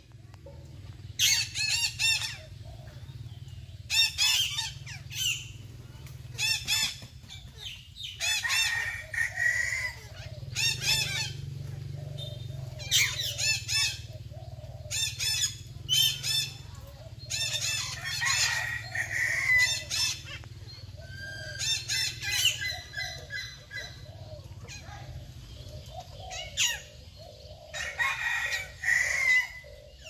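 Red-breasted parakeets calling: loud, harsh squawks in repeated bursts every second or two.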